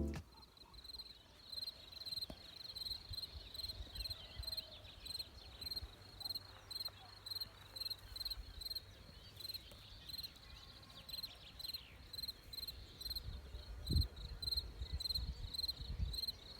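Insects, likely crickets, chirping steadily, about two short high chirps a second, with a few faint bird calls and low rumbles of wind on the microphone near the end.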